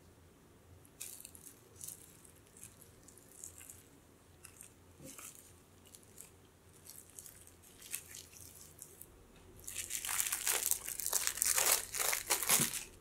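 Plastic cling film crinkling as hands wrap a log of cookie dough. Scattered crackles come first, then the crinkling turns dense and loud from about ten seconds in as the wrapped log is pressed and rolled, and it stops just before the end.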